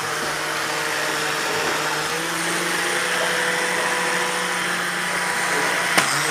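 Air Hogs flying toy's small electric motor and propeller running steadily, a constant hum over a rush of air. A single sharp tap comes about six seconds in.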